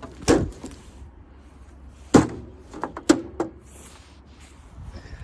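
A ViewSonic E70F CRT monitor being smashed: a few separate sharp blows landing on it, the loudest about two seconds in, with smaller knocks between them.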